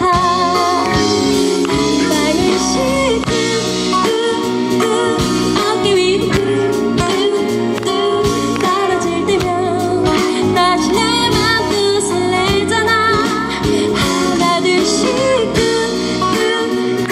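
Live pop song: a woman sings into a handheld microphone over band accompaniment with a steady beat.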